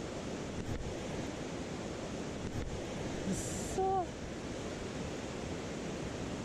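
Mountain stream rushing steadily over rocks. About three and a half seconds in comes a brief high-pitched sound, followed by a short, slightly falling tone.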